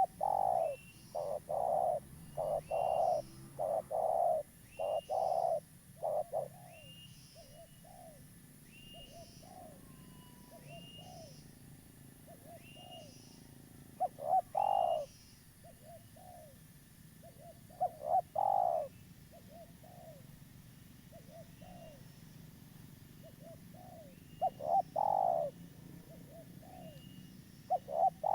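Spotted dove (tekukur) cooing persistently: a long run of loud coos in the first six seconds, then softer short coo notes with loud runs returning every few seconds. A local bird in full voice, the kind of call used as a lure to draw in wild doves.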